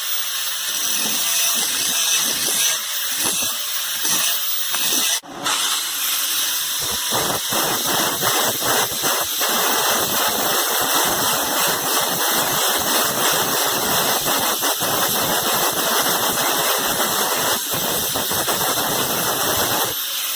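Angle grinder with a flap disc running and grinding the bevels into a tempered steel knife blade, a loud steady hiss with a high whine. It breaks off briefly about five seconds in, then carries on.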